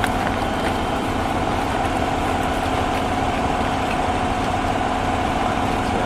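Heavy truck engine idling steadily, with a constant hum over a low rumble.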